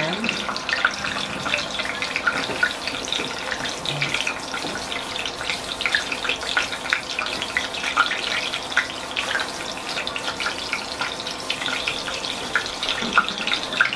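Raw meatballs sizzling in shallow hot cooking oil in a pan, a steady dense crackle of small pops.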